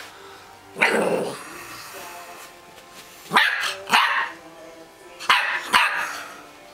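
Puppy barking about five times in short, high yaps, the last four coming in two quick pairs.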